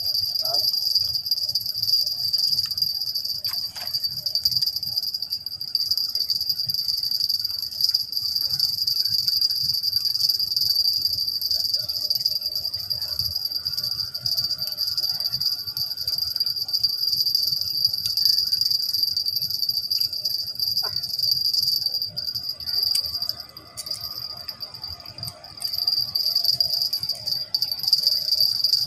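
Insect chorus: a loud, steady high-pitched shrill that drops away briefly about two-thirds of the way through, then returns.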